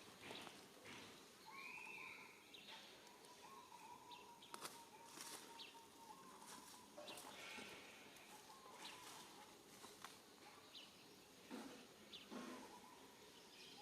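Faint outdoor ambience: a couple of short chirping calls, scattered light clicks and rustles, and a thin steady tone that holds for about five seconds and then stops.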